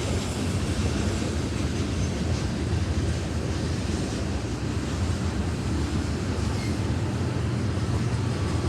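Coal train's cars rolling past with a steady low rumble.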